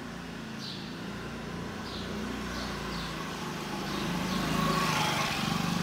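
A motor vehicle engine running close by, growing louder about four seconds in, with a few short high chirps over it.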